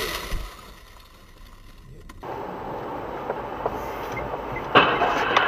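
The noise of a car collision dies away at the start. Then comes steady driving noise from a dashcam inside a car, with one sharp knock near the end.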